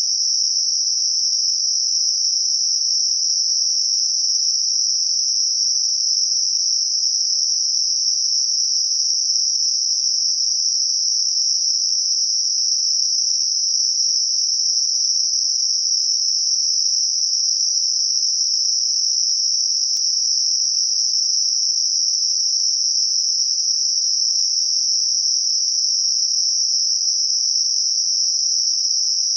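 Synthesized Gaussian narrow-band noise centred on 5.5 kHz, a steady high-pitched hiss confined to roughly 4 to 7 kHz, used as a tinnitus masker.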